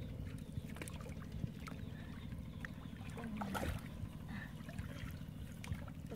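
Light sloshing and small splashes as a stick is pushed through shallow muddy water and reeds, over a steady low rumble.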